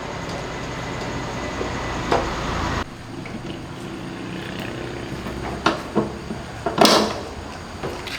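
A steady machine noise stops abruptly about three seconds in. After it come a few scattered knocks and clatters, the loudest one near the end.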